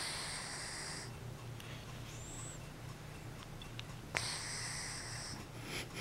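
Sleeping ginger tabby cat snoring: two breaths about four seconds apart, each about a second long, with a sharp hissing, whistle-like start.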